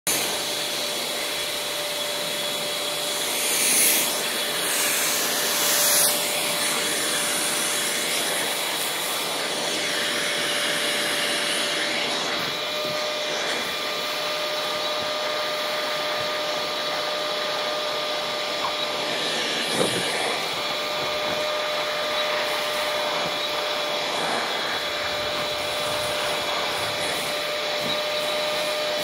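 Shop-vac running steadily, sucking sand from between stored dahlia tubers, with a steady motor whine. It rushes louder briefly about four and six seconds in, and there is a single sharp knock about twenty seconds in.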